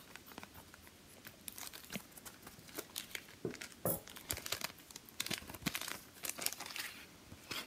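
Thin plastic wrapping of a sealed sticker pack crinkling as it is handled and turned over, a run of irregular crackles.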